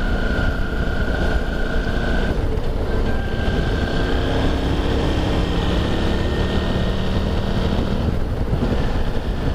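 Motorcycle engine running steadily at highway cruising speed, with wind noise rushing over the handlebar-mounted camera's microphone. A faint high steady whine drops out about two seconds in.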